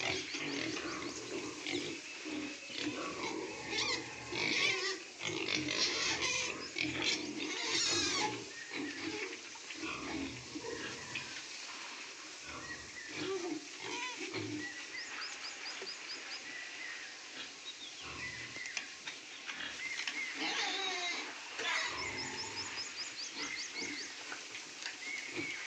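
Two-month-old pigs grunting and squealing, with calls overlapping throughout and the busiest, loudest stretch in the first several seconds.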